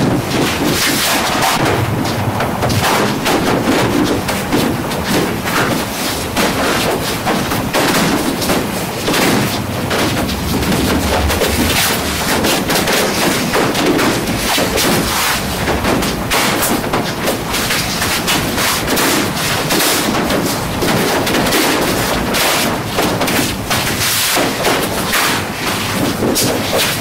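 Continuous close-up clatter of hands handling and fitting the plastic and metal parts of a Xerox Phaser 6000 laser printer: dense irregular clicks and knocks, with bumping right at the microphone.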